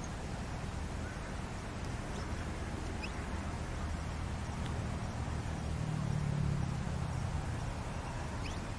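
Outdoor ambience: a steady low rumble that swells a little past the middle, with a few faint, very short rising chirps scattered through it.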